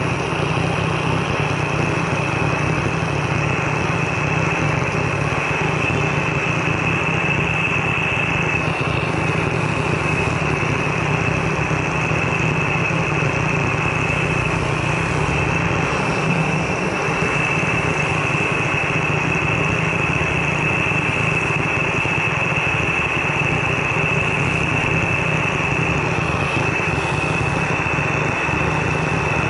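Handheld gas torch on a small fuel canister burning steadily: a loud, constant hiss of the jet flame with a steady high tone in it, unchanged throughout.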